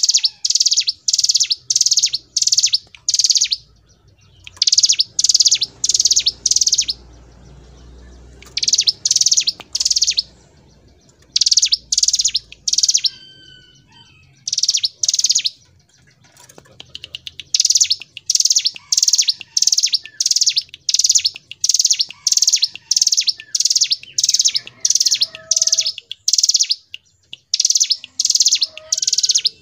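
Ciblek gunung (a mountain prinia) singing its rapid rolling song: runs of loud, sharp, high notes, about two to three a second, broken by short pauses of one to two seconds. Fainter, lower chirps sound in between.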